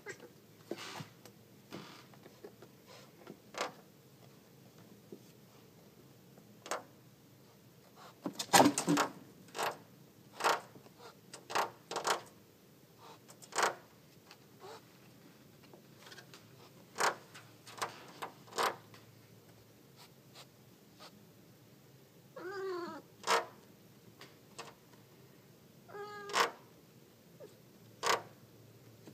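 Siamese cat meowing: two short calls, one about three-quarters of the way through and another a few seconds later. Scattered sharp clicks and taps sound throughout, the loudest about a third of the way in.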